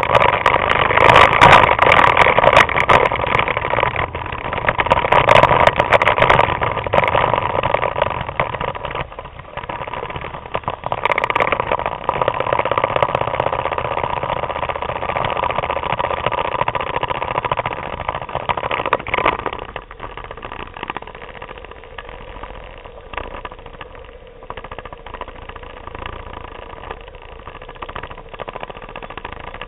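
Vespa scooter engines running in a moving group ride, mixed with road noise. The sound is louder for roughly the first twenty seconds, then drops noticeably.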